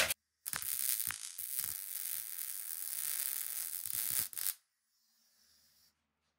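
Welding arc crackling with a steady hiss while a weld bead is run. It starts about half a second in and stops suddenly about four and a half seconds in.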